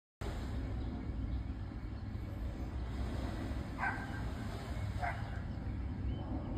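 Steady low outdoor rumble, with two short animal calls about a second and a half apart.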